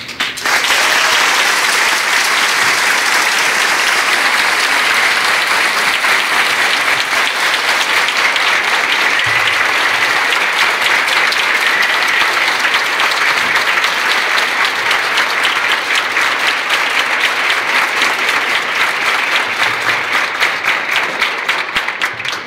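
A large crowd applauding, starting abruptly and thinning into separate, scattered claps near the end.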